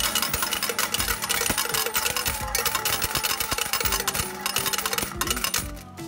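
Coin change machine paying out a fast stream of coins that clatter into its metal return tray, stopping about five and a half seconds in.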